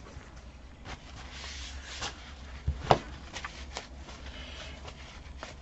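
A few light taps and clicks of craft tools and paper flowers being handled on a work table, the loudest about three seconds in, over a low steady hum.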